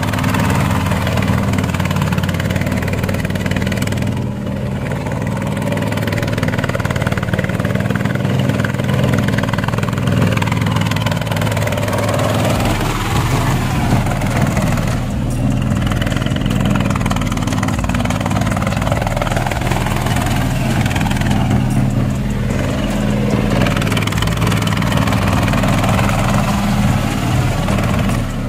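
Boat tractor's 20 hp Chinese diesel engine running steadily, its level dipping briefly a few times.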